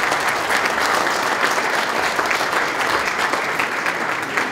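Audience applauding, a steady patter of many hands clapping that begins to thin out near the end.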